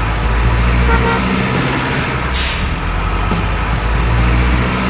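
Steady low truck-engine rumble from a miniature RC dump truck, with background music keeping a steady beat.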